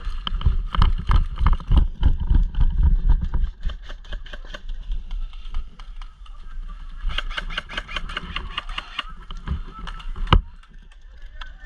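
Heavy running footsteps and jostling gear for the first few seconds, then a quick run of evenly spaced sharp clicks, airsoft gunfire, about seven seconds in, and a single sharp knock near the end.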